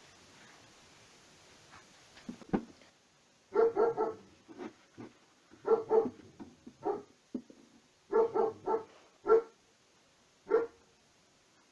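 A dog barking repeatedly in short runs of up to four barks, with single barks between the runs. A single sharp knock comes shortly before the first barks.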